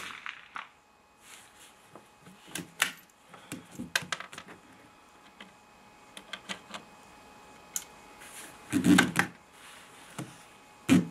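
Sharp .22 rimfire rifle reports from a BSA Century bolt-action target rifle, one right at the start and one near the end. Between them come scattered metallic clicks and clacks of the bolt being worked and a round loaded, with a louder clatter about nine seconds in.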